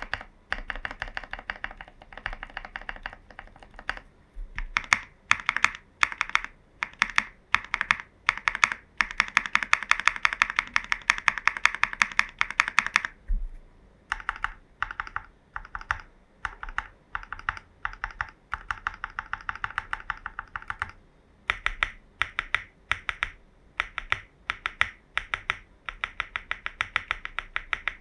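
Typing on a JerPlanet J1800 mechanical keyboard fitted with lubed and filmed frankenswitches (Cherry housings with NK Cream stems). The keystrokes come in bursts, with one long unbroken run about nine to thirteen seconds in and a short pause just after it.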